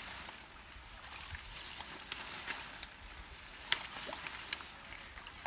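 Pond water sloshing and splashing, with water hyacinth leaves rustling, as men wade and work a fishing net through the weed by hand. Small scattered splashes and clicks, one sharper about two-thirds of the way through.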